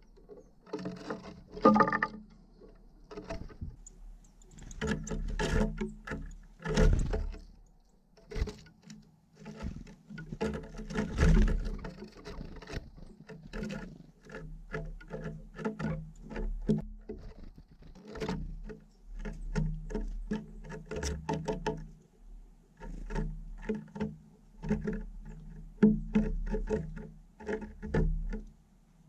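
A Eurasian jay and then a Eurasian nuthatch pecking and hopping on a wooden feeder tray strewn with seeds, heard at very close range: irregular taps, knocks and scratches of beak and claws on the wood, with a few sharper, louder strikes.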